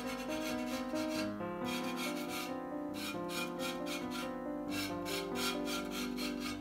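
Edge of a cast plaster relief tile being rubbed smooth by hand, a dry rasping scrape repeated in short strokes about three a second.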